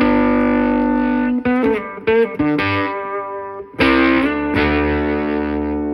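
Electric guitar through a boost pedal on its third, highest-gain setting, played into a solid-state Fender Studio 85 amp, with a lot of breakup, a bark and a heavy attack. A chord rings for about a second and a half, a few short notes follow, and another chord is struck about four seconds in and held.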